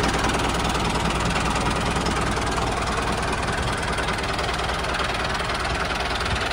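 Tractor engine running steadily with an even, low chugging.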